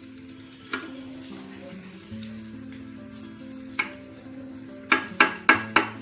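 Prawns sizzling in sauce in a kadai while a spatula stirs them, knocking the pan now and then; near the end the spatula knocks the pan four times in quick succession, the loudest sounds here.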